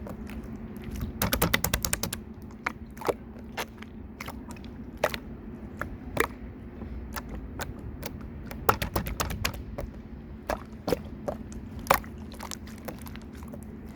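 Slime being pressed and squeezed by hand, giving scattered sharp clicks and pops, with a quick run of clicks about a second in, over a faint steady hum.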